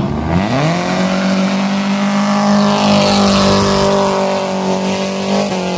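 A car doing a burnout: the engine revs up sharply and is held loud at high revs for about five seconds while the drive tyres spin and squeal on the pavement, then the revs drop just before the end.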